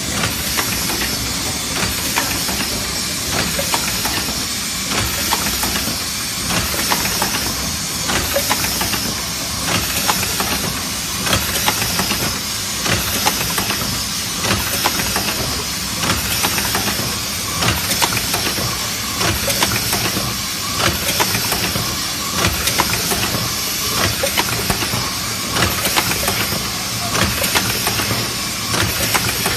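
Automatic tube filling and sealing machine running: a steady hiss with clusters of mechanical clacks and knocks that repeat about every second and a half, one cluster per machine cycle.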